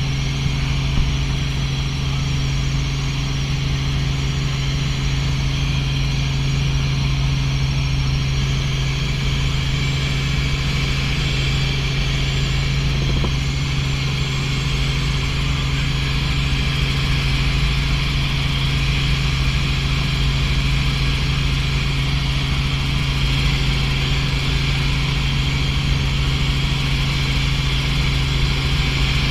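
Small helicopter in steady cruising flight, heard from inside the cabin: an unbroken drone of engine and rotors with a strong low hum under a steady rushing hiss.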